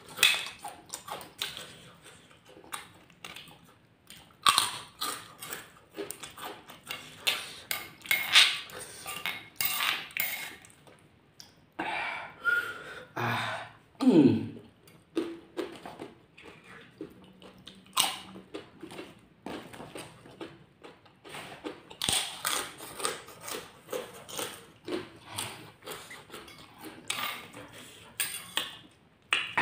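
Close-up eating sounds: a metal spoon clinking and scraping in a stone mortar of sambal, with crisp crackers (kerupuk) crunched and chewed. About halfway there is a short falling-pitched groan.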